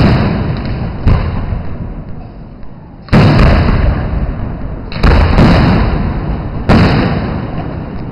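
Aerial firework shells bursting overhead: five loud bangs about one to two seconds apart, each fading slowly over a second or more.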